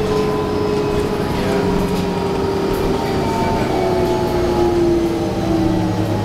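Interior ride noise of a moving 2011 New Flyer D40LFR transit bus with a Cummins ISL9 diesel and Allison transmission: a steady rumble under a drivetrain whine that slowly falls in pitch.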